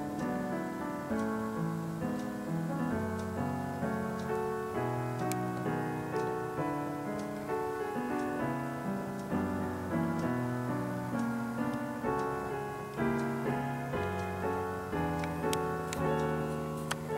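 Background piano music: a slow piece of held notes and chords.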